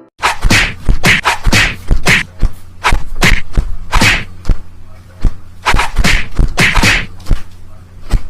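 A rapid, irregular series of sharp whacks, roughly two to three a second, over a steady low hum.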